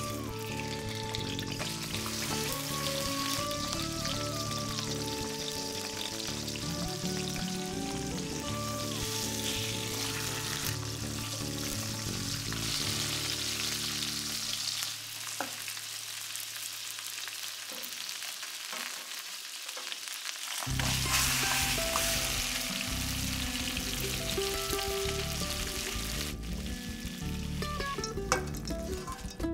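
A carp head sizzling steadily as it fries in hot oil in a steel wok, with background music over it. The music drops out for several seconds midway, leaving the sizzle alone.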